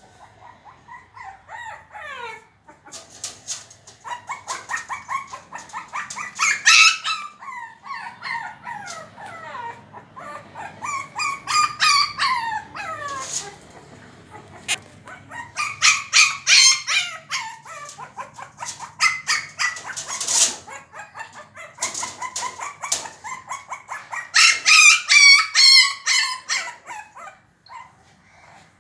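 Shih Tzu puppy whining and yelping in runs of short, high, bending cries, wanting the door opened, with paws scratching and knocking at the glass door between the cries.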